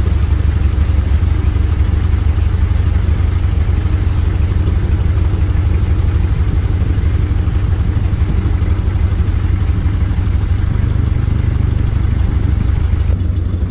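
A narrowboat's engine running steadily, a low, even throb.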